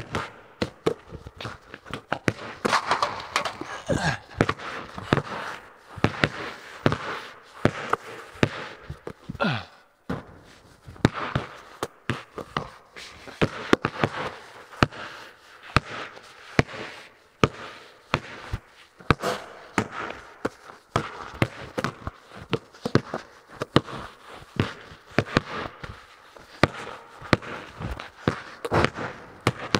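Basketballs bouncing on a bare concrete floor, a rapid, irregular run of sharp thuds with footsteps mixed in, echoing off the metal walls of a large empty barn.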